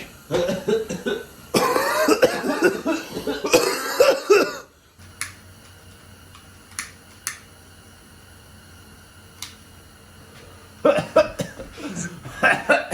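A man coughing hard and clearing his throat for several seconds. The coughing stops abruptly, leaving a quiet low hum with a few sharp clicks, and more coughing and voice sounds come back about eleven seconds in.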